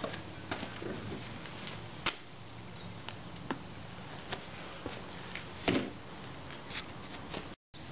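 Scattered light clicks and knocks of a plastic oil bottle and funnel being handled while fresh oil is poured into a lawn mower's oil fill tube, with one louder knock about six seconds in, over a steady low hum.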